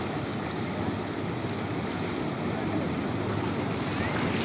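Ocean surf breaking and washing up a beach, a steady rush of waves.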